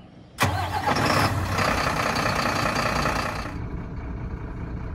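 BharatBenz 4228R truck's OM 926 six-cylinder diesel engine starting up. It catches suddenly about half a second in and runs loud for about three seconds, then settles to a quieter steady idle.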